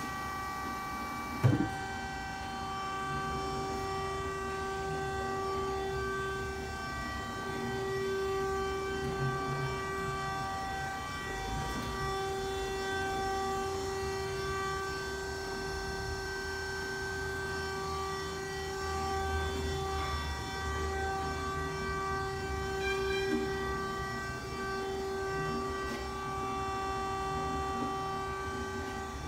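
DoAll C-305A automatic horizontal band saw running: a steady mechanical whine over a low rumble, with one sharp knock about a second and a half in.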